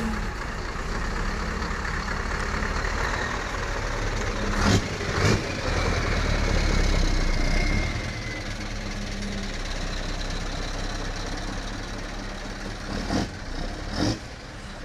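Scania R560's V8 diesel engine running as the truck rolls past, swelling for a few seconds in the middle and then easing off, with a faint falling whine and a few sharp clicks.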